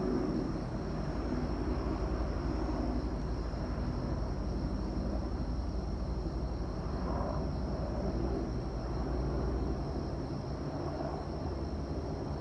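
Boeing AH-64 Apache helicopter flying over, its four-blade rotor and twin turboshaft engines making a steady low rumble that swells a little now and then. A faint steady high tone runs above it.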